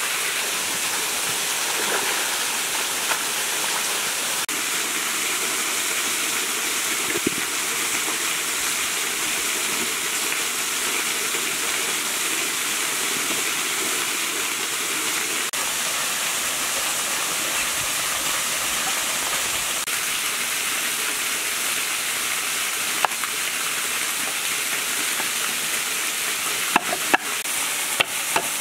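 Steady rush of a small waterfall splashing into a pool. Near the end come a few sharp knocks: a cleaver chopping lemongrass on a wooden cutting board.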